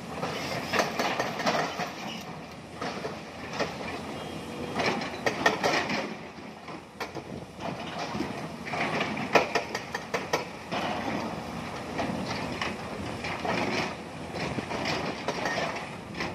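Excavator bucket digging into a pile of broken stone, the rocks clattering and scraping in repeated bursts over the steady running of the machines' engines.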